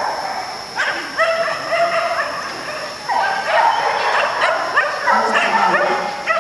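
A dog barking in high yips, many in quick succession and in several runs, starting about a second in.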